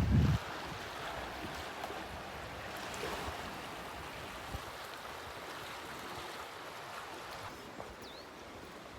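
Steady rushing hiss of the River Aare's fast water running through the narrow Aare Gorge. A brief low rumble comes in at the very start and cuts off within half a second.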